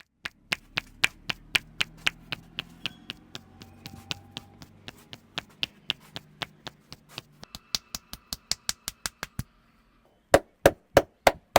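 Hands tapping and chopping on the head in a barber's percussive head massage: quick, even strokes about four a second. After a brief pause near the end the strikes turn louder and fuller, about three a second.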